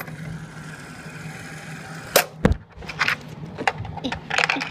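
Toy one-armed-bandit slot machine: a faint whir from the spinning reels, then one sharp clack about two seconds in as they land, followed by a dull thump and a few lighter knocks.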